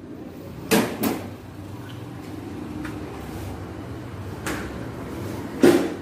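A car's road wheel being taken off its hub after the lug bolts were loosened, giving a few knocks and clunks: two close together about a second in, and a louder one near the end.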